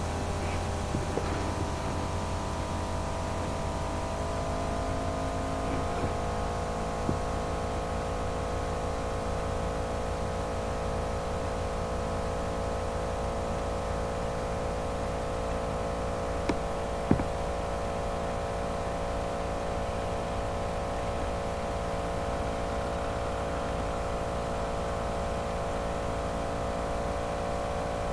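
Tractor and its mounted boom sprayer at work: a steady engine drone under a held machine whine, sinking slightly in pitch a few seconds in as it moves away.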